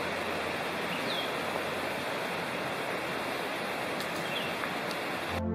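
Big Creek, a mountain stream, rushing steadily, with a couple of faint high chirps over it.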